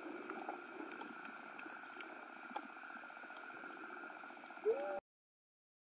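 Underwater ambience picked up by a submerged camera: a steady hum with faint scattered clicks. Near the end a short muffled vocal sound rises and falls, and then the sound cuts off abruptly.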